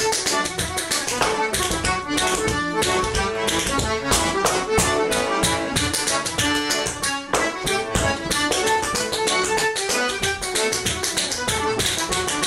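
A button accordion plays a lively traditional Irish dance tune, with the quick, rhythmic taps of sean-nós dance steps on a flagstone floor sounding over it.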